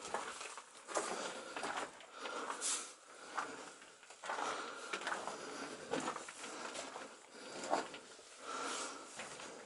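Footsteps crunching on loose dirt and rock inside a mine tunnel, an uneven stride of one step every half second to a second.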